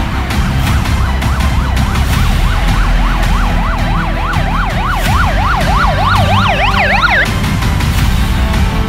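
A siren in a fast yelp, sweeping up and down about four times a second and growing stronger. A second, higher siren joins near the end, and both cut off about seven seconds in. Music with a steady low beat runs underneath.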